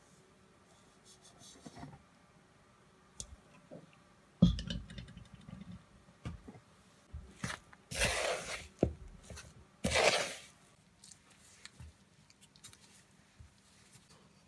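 Hands mixing soft cookie dough into flour in a plastic mixing bowl: scattered knocks against the bowl and two short scraping rustles, the loudest sounds, about two seconds apart.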